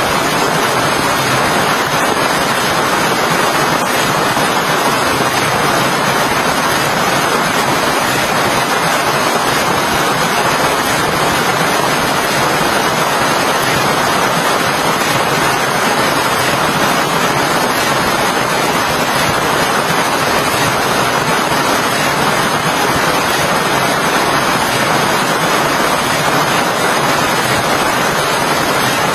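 Steady, even hiss of heavy rain, unchanging throughout.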